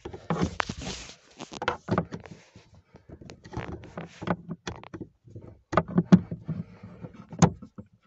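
A small screwdriver scraping and clicking against the BMW i3's boot latch release and the plastic trim around it, as the jammed latch is worked open by hand from inside. Irregular knocks and clicks, with a longer scrape about half a second to a second in.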